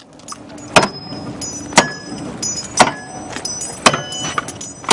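Axe striking a Halligan bar, driving it into a car's door sill to set it as the anchor for a hydraulic ram in a dash roll. Five heavy metal-on-metal blows about a second apart, each ringing briefly.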